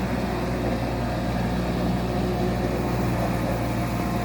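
Diesel engine of a Morooka MST1500 rubber-track crawler carrier running at a steady speed during a post-repair test run.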